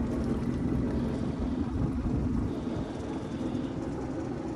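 Motorboat engine running steadily as the boat moves along, a constant low hum with hiss over it.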